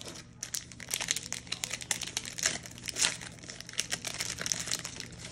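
Clear plastic wrapper of a Panini Contenders retail trading-card pack crinkling as the pack is torn open by hand: a dense run of sharp crackles that starts about half a second in and is loudest around the middle.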